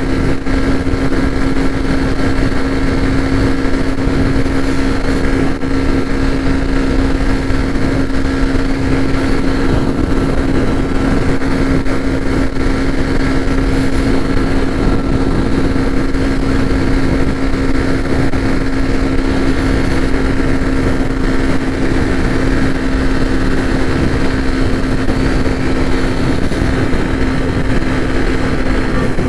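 Hero Xtreme 125R motorcycle's single-cylinder engine running at a steady, unchanging engine speed, giving a loud, even hum.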